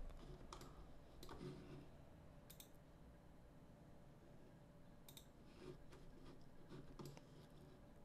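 Near silence with a few faint, short computer mouse clicks.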